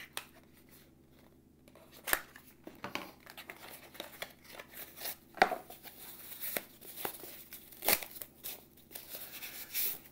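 Cardboard box being opened and a knife unwrapped from white paper: sharp snaps and clicks of cardboard, then paper rustling and crinkling, busiest near the end.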